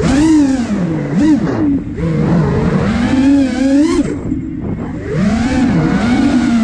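iFlight Nazgul Evoque F5 FPV quadcopter's brushless motors and propellers buzzing, the pitch swinging up and down with the pilot's throttle punches and chops. The buzz drops back sharply about two seconds in and again about four seconds in.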